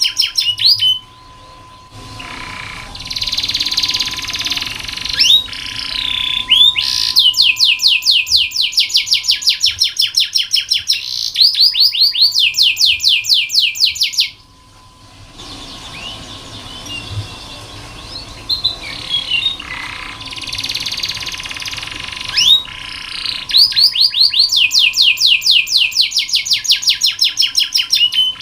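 Domestic canary singing in long rolls of rapidly repeated sweeping notes, broken by two short quieter pauses, about a second in and near the middle. A faint steady high hum runs underneath.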